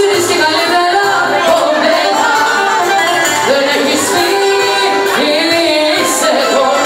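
A woman singing into a microphone over loud amplified music, in a large, echoing room.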